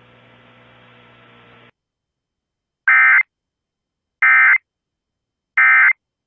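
Emergency Alert System end-of-message signal: three identical short, loud digital data bursts with a buzzy, screeching tone, about a second and a half apart, marking the end of the alert. Before them a faint steady hum cuts off.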